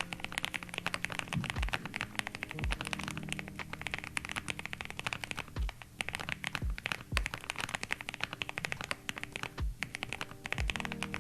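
Rapid typing on a mechanical keyboard fitted with Gateron Oil King linear switches: a dense run of clacking keystrokes.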